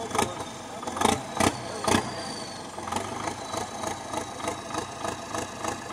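Belarus tractor's diesel engine idling steadily, with four sharp knocks in the first two seconds that are the loudest sounds.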